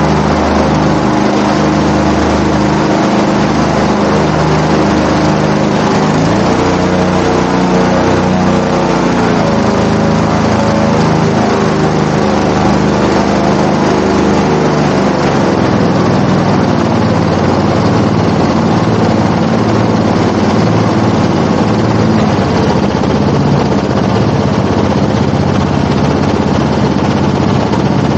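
Airboat-320 SE hydrocopter's engine and propeller running, revving up about six seconds in, holding higher for several seconds, then easing back down and running on at a lower, steady pace.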